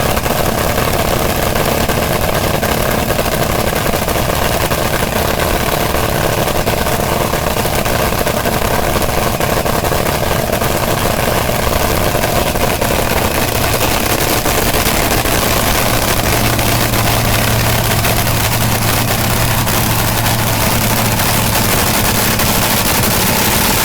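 Eight-cylinder engine running loudly and steadily at idle; a deeper low hum joins in about two-thirds of the way through.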